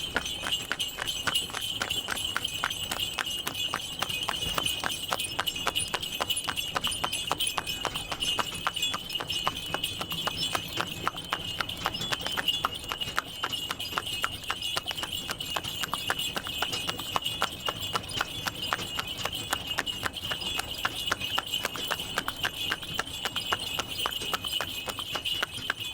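Horse hooves clip-clopping at a steady trot while pulling a tanga, a horse-drawn cart, with a steady high ringing tone running alongside.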